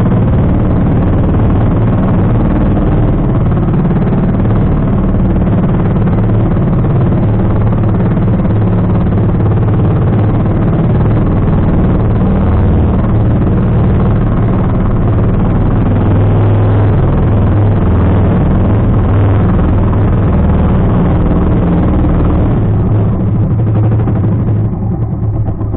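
Outrigger fishing boat's engine running steadily under way, loud, with wind and water noise; it gets quieter and uneven near the end.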